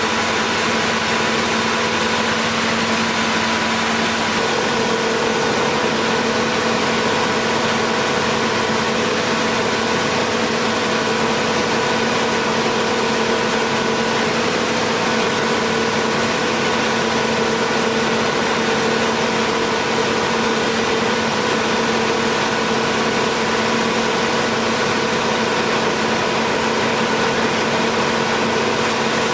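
Onan 125 kW diesel generator set running steadily at constant speed: an even engine drone with several held hum tones.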